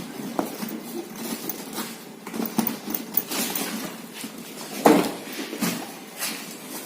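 Handling of a fabric motorcycle saddle bag: irregular rustling and light knocks as it is opened and moved about, with one louder knock about five seconds in.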